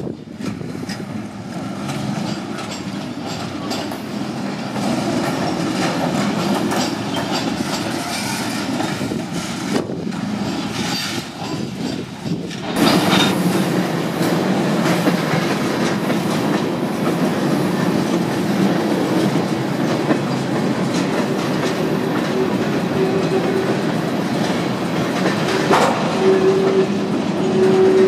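Freight cars of a train backing through a wye rolling slowly past, their wheels clacking over rail joints with a steady rumble; louder from about halfway. Near the end a thin steady wheel squeal comes and goes.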